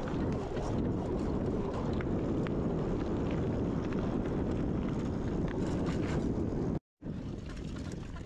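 Mountain bike rolling along a dirt and gravel trail: a steady tyre rumble with many small clicks and rattles, and wind buffeting the microphone. The sound drops out for a moment near the end, then carries on a little quieter.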